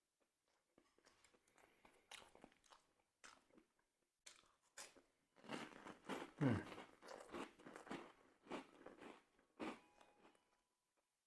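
Close-up chewing and crunching of crispy grilled bánh mì: irregular crackly bites that grow denser and louder in the middle, with a brief low falling tone about six and a half seconds in.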